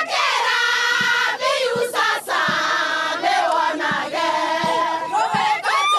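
A group of women singing together in chorus, holding long notes, with rhythmic handclapping about every 0.7 s.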